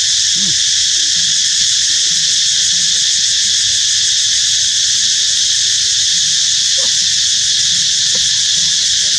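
Loud, steady, high-pitched drone of an insect chorus, with a few faint short low sounds beneath it.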